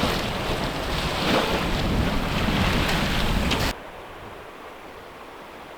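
Wind buffeting the microphone over the wash of the sea from a sailboat under way. It cuts off abruptly about two-thirds of the way through, leaving a much quieter, even hiss.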